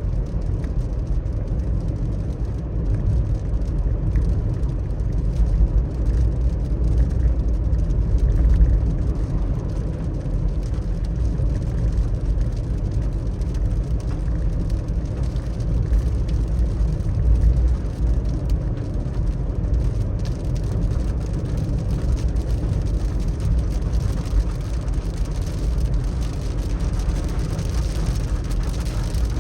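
Car driving on a wet road in the rain: a steady low rumble of road and engine noise with a fainter hiss of tyres on wet tarmac.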